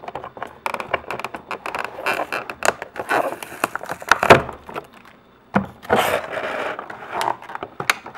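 Clear rigid plastic packaging crackling, clicking and scraping as it is handled and pulled apart to free a diecast model car from its plastic base. There is a sharp knock about four seconds in, followed by a brief quieter stretch.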